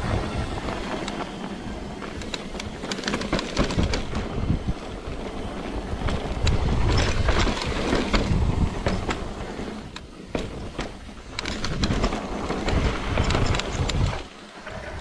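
Mountain bike being ridden over sandstone slickrock and dirt: tyre rumble and wind buffeting the microphone, broken by frequent clicks and rattles from the bike.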